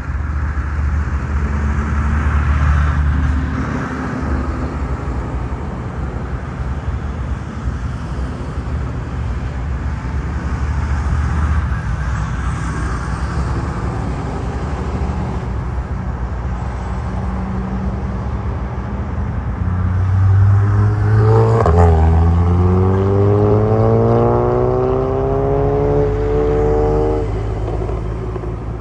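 Airbus A380 jet engines at takeoff power, a steady low rumble. Late on, an engine note sets in suddenly and rises steadily in pitch for about five seconds, then stops.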